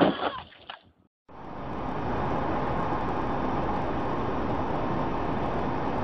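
A sound cuts off about a second in. After a short silence, a steady rushing noise of a vehicle in motion fades in and holds evenly, like road noise heard from inside a moving car.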